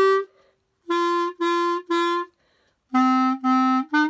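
Clarinet playing short, detached notes of a warm-up exercise: three notes on one pitch, a brief rest, then a few more notes on a lower pitch.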